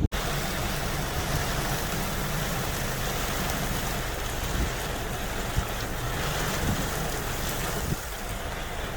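Steady rain falling, an even continuous hiss, over a low steady hum.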